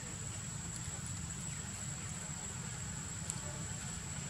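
A steady, thin, high insect whine held without a break over a low outdoor rumble, with a few faint ticks, the sharpest about three seconds in.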